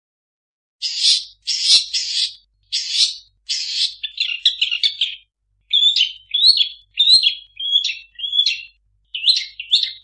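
Long-tailed shrike (cendet) singing a varied song full of imitations of other birds. It starts a moment in with harsh, scratchy calls, breaks into a quick chatter, then runs through short whistled notes that slide up and down in pitch.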